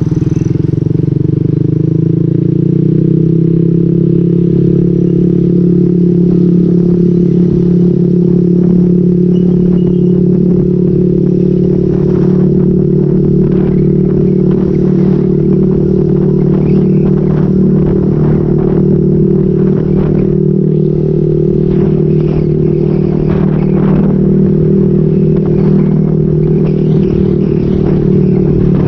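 Motorcycle with an aftermarket SC Project exhaust and modified elbow pipe running at a steady cruise while being ridden, a loud even drone that climbs a little in pitch at the start and then holds. Short clattering knocks come and go over it, mostly in the second half.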